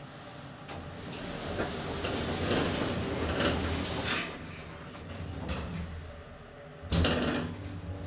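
Lift car's automatic sliding doors closing, the door operator whirring as the panels run shut and meet with a knock about four seconds in. About three seconds later comes a sharp loud clunk, followed by a steady low hum from the lift machinery.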